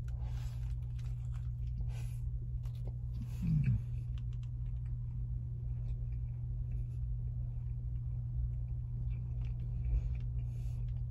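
A person biting into and chewing a burger, with faint crinkles from its paper wrapper in the first couple of seconds. There is a short murmur of the voice with falling pitch about three and a half seconds in, all over a steady low hum.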